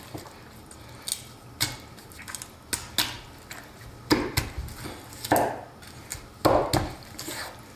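A cleaver chopping through a whole raw chicken and knocking on a wooden cutting board: about nine sharp, irregular chops as the bird is split in half.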